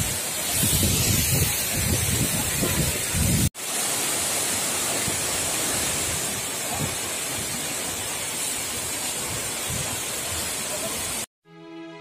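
Steady rushing of a 70-metre waterfall close by, with low buffeting on the microphone for the first few seconds. The sound breaks off briefly about a third of the way in and returns steady, then cuts off near the end as soft music with held tones begins.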